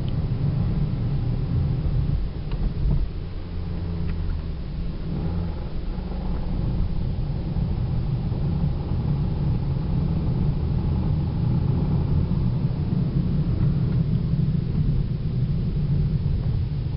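Toyota Celica four-cylinder engine and manual drivetrain running under way, heard from inside the cabin as a steady low rumble, with a brief dip in level about three seconds in. The car has a chattering transmission noise that grows louder in higher gears, which the owner suspects is a throw-out bearing on its way out.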